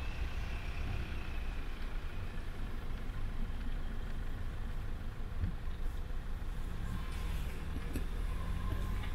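A car engine idling, a steady low rumble.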